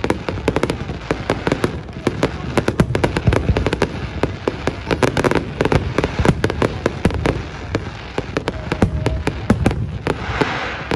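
Fireworks display: many quick bangs and crackles in close succession, with a hissing crackle about ten seconds in.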